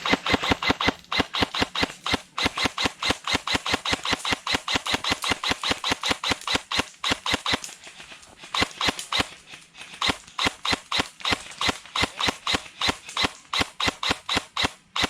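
Airsoft gun firing a long, steady string of rapid shots, sharp snaps at about four a second, thinning briefly around the middle.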